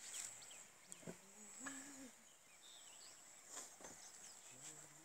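Quiet ambience: a steady high-pitched insect drone with scattered bird chirps and faint distant voices, plus a few light knocks.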